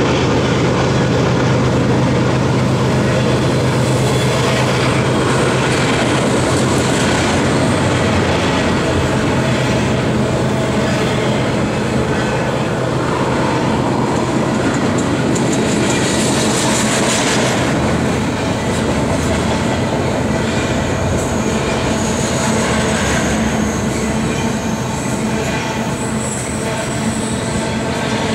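Double-stack container freight train rolling past at close range, a steady loud rumble of steel wheels running on the rails. High-pitched wheel squeal comes in now and then in the second half as the cars take the curve.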